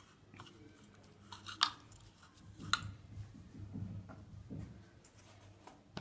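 Metal spoon stirring finely chopped raw vegetables in a plastic bowl: soft squishing with a few sharp clicks of the spoon against the bowl, the loudest a little under three seconds in.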